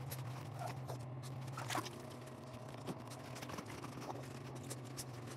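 Faint scrubbing of a rubber shampoo brush through a wet dog's fur in a bathtub, with scattered light clicks and taps over a steady low hum.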